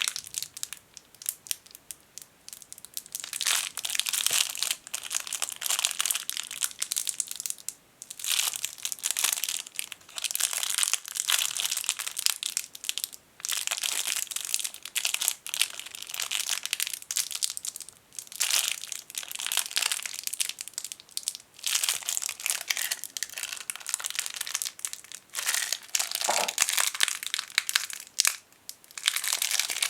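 Tiny plastic bag crinkled and squeezed between fingers: dense crackling in runs of a few seconds, with short pauses between.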